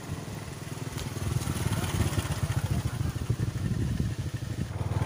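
An engine running, its low, rapid, even pulses growing louder about a second in.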